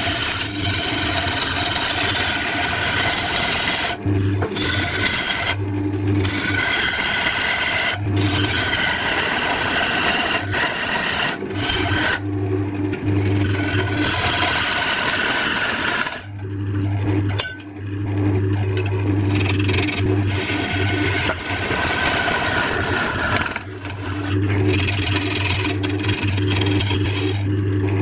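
Hand-held turning chisel cutting into spinning wood on a lathe: a continuous rasping scrape as shavings come off, broken by a few short pauses, the longest about two-thirds of the way through, over the steady low hum of the running lathe.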